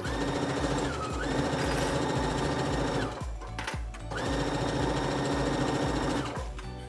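Electric domestic sewing machine stitching a seam through knit fabric, running in two stretches of about three and two and a half seconds with a short stop between, slowing briefly about a second in.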